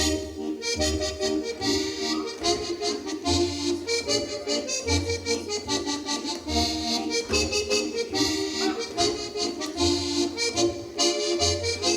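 Accordion playing a lively Alpine folk dance tune with an oom-pah bass, while Schuhplattler dancers slap their thighs and shoes and stamp in rhythm, giving many sharp claps over the music.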